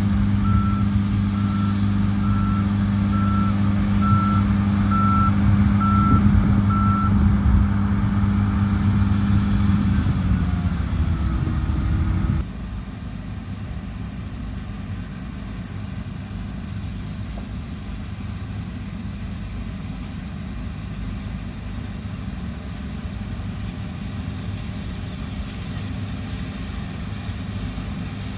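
Diesel engine of heavy harvest machinery running loud while a reversing alarm beeps about one and a half times a second for the first seven seconds. Around ten seconds the engine note drops, and at about twelve seconds the sound falls abruptly to a quieter steady drone.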